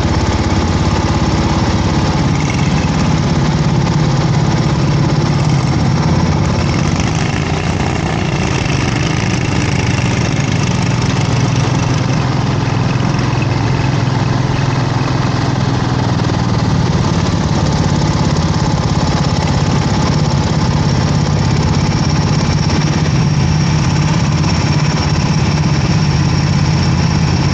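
Kart engine running steadily at low, nearly constant revs.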